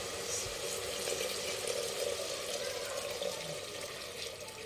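Water poured in a steady stream from a plastic jug into a pressure cooker of hot tomato masala, trickling and splashing, growing a little quieter near the end.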